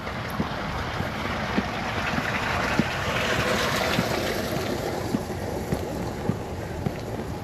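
Footsteps at an even walking pace, about three steps every two seconds, under a steady rush of wind over the microphone that swells into a stronger gust around the middle and then eases.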